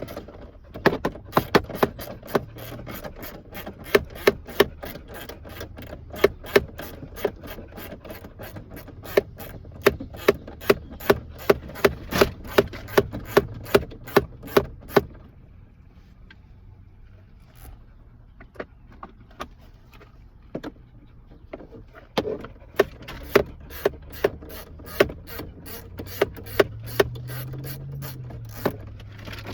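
Socket ratchet clicking in quick, even runs as a deep-threaded 12 mm bolt is backed out, pausing for a few seconds about halfway through before clicking resumes.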